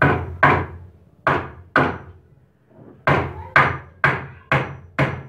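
Claw hammer driving a nail into a wooden batten on a wooden shoring post: sharp wooden blows with a short ring, about nine in all, mostly in pairs half a second apart, with a pause of about a second near the middle.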